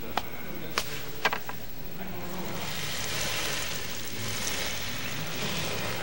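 Animated-film sound effects: a few short, sharp clicks, then a steady hiss that sets in about two seconds in.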